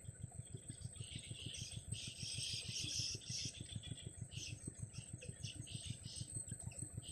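Baby birds in the nest giving raspy calls, a dense run of them from about a second in lasting two to three seconds, then a few short calls. Under them runs a fast, even low pulsing like a distant idling engine, and a constant high whine.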